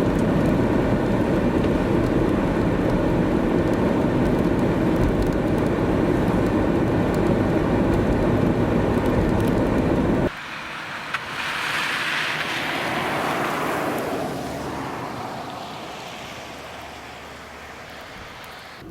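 A loud, steady low rumbling noise cuts off abruptly about ten seconds in. Then a vehicle drives past on the snowy road, its hiss swelling and fading away over several seconds.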